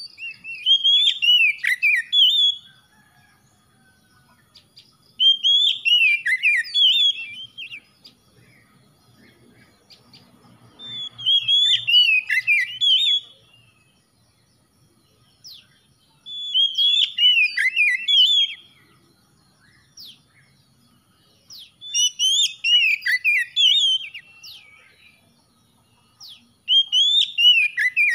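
Oriental magpie-robin (kacer) singing: six phrases of fast, varied sliding notes, each about two seconds long, repeated roughly every five seconds with quiet gaps between.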